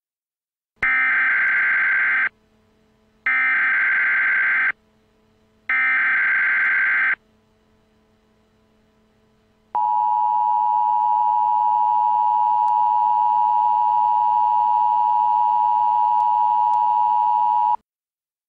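Emergency Alert System tones: three short bursts of the warbling SAME header data tones, evenly spaced, then the steady two-tone EAS attention signal near 1 kHz, held for about eight seconds before cutting off abruptly. Together they mark the start of an emergency alert broadcast.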